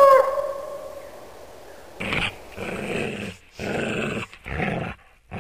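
Wolf howl ending in a quick drop in pitch and dying away, then, from about two seconds in, a series of short, rough growls with brief gaps between them.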